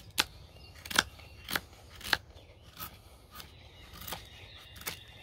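Bushcraft knife shaving curls off a stick of weathered, partly rotted outdoor wood, in about eight short scraping strokes, roughly one every 0.7 s.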